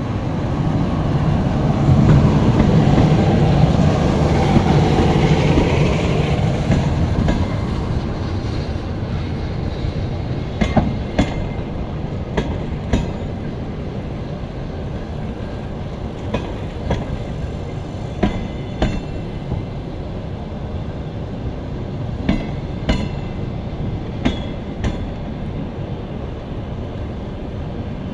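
EP2K electric locomotive pulling an arriving passenger train past at close range, loudest about two to six seconds in. Its passenger coaches then roll slowly by, the wheels knocking over rail joints, mostly in pairs about half a second apart, every couple of seconds.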